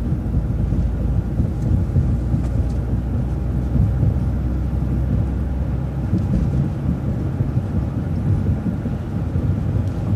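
Transit bus running, heard from inside: a steady low engine and road rumble with a few faint rattles.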